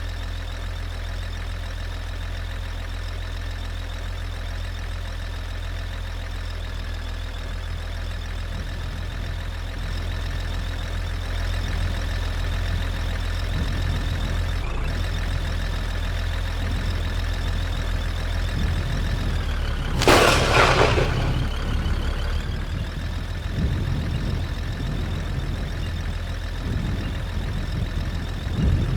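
Steady low rumble of a vehicle driving, with road and engine noise. About twenty seconds in there is a brief loud rush of noise.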